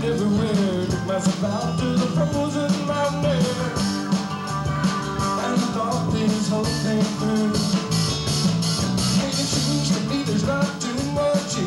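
A live rock band playing a song, with drums keeping a steady beat under bass and guitars.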